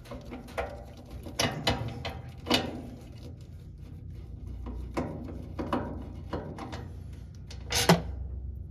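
Irregular clicks and knocks of plastic and metal parts being handled as the lid switch is taken out of an older Whirlpool top-load washer, with a sharper knock near the end.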